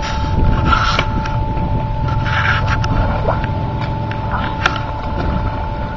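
Pool water splashing as a swimmer moves at the pool edge and pulls himself up, with two splashy bursts about half a second and two seconds in. A steady low rumble and a faint steady hum run underneath.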